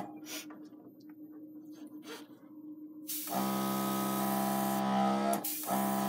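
Airbrush compressor running with a steady motor hum and hissing air. It cuts out abruptly, leaving a quieter gap with a couple of faint clicks, then starts again with a rush of air about three seconds in and runs on, dipping briefly near the end.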